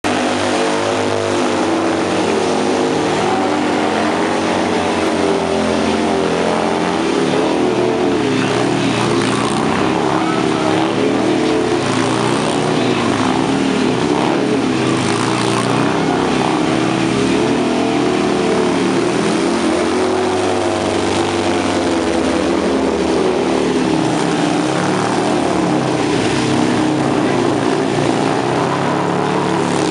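Harley-Davidson Sportster air-cooled V-twin engines revving hard for burnouts and stunt riding, the pitch swinging up and down continuously as the throttle is worked.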